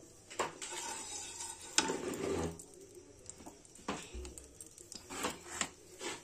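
Spatula scraping and knocking in a kadai holding a little heating oil: a few scattered sharp clicks, a stretch of scraping about two seconds in, and a dull low thump about four seconds in.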